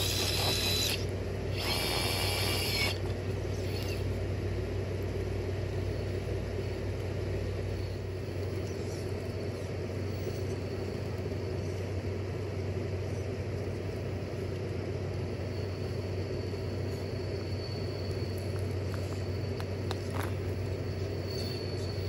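RC crawler's brushless motor and ESC sounding two short electronic tones near the start, then a steady low motor and drivetrain hum.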